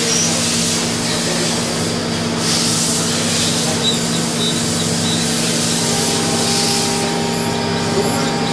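Mazak VTC 300C CNC vertical machining center running during a machining cycle: a steady hum with a hiss over it, and a higher steady tone joining about six seconds in.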